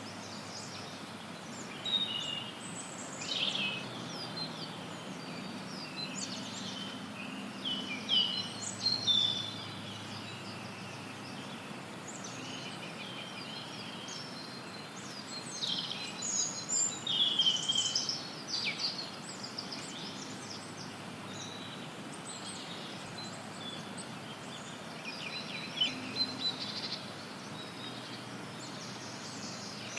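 Forest birds singing and chirping over a steady hiss of added white noise. The bird phrases come in several clusters of quick chirps and trills, with quieter stretches of just the hiss between them.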